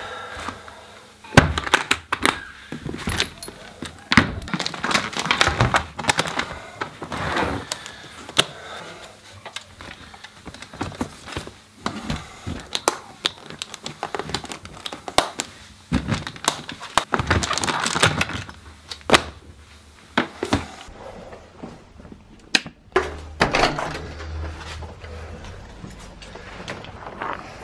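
Soprano saxophone and its hard case being handled and packed away: a long run of sharp clicks, knocks and thunks as the metal instrument and parts go into the case and the lid and latches are shut. Near the end the knocking gives way to a duller low rumble.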